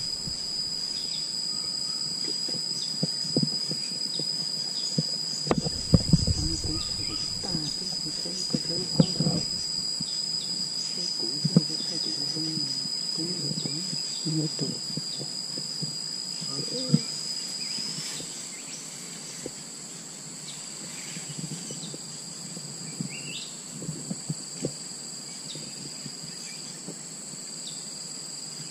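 Insects buzzing in a steady, high-pitched drone with a second, higher tone above it, dropping somewhat in level about two-thirds of the way through. Scattered close knocks and rustles sound over it, the loudest about six seconds in.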